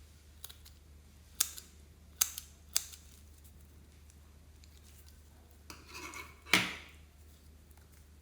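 Sharp clicks and taps of small hard objects being handled: three separate clicks in the first three seconds, then a brief scraping rustle and a louder clack about six and a half seconds in.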